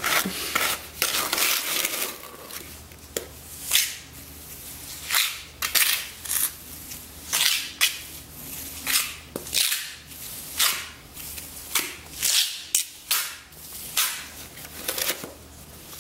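Steel margin trowel working wet cement patching mix into a pit in a concrete floor: a run of short, sharp scraping strokes, irregular, about one or two a second.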